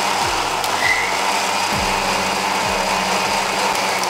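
Electric mixer grinder running steadily, its steel jar blending strawberries, pineapple and orange juice into a purée.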